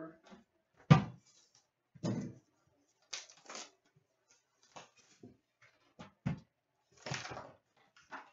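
A cardboard box of Upper Deck hockey card packs being handled and opened on a glass counter: a sharp thump about a second in, then crinkling and tearing of the plastic wrap and cardboard, with two quick knocks about six seconds in.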